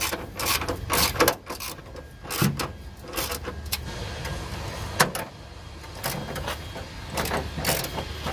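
Socket ratchet wrench clicking in short irregular bursts as it is swung back and forth on an engine mount bolt, with a few sharper metallic knocks.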